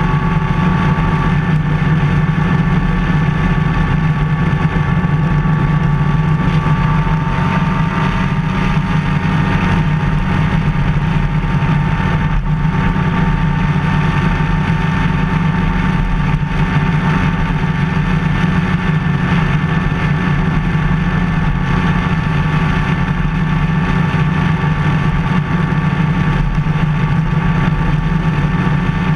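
Motorcycle engine running steadily at cruising speed, mixed with wind and road noise, heard from a camera mounted on the bike.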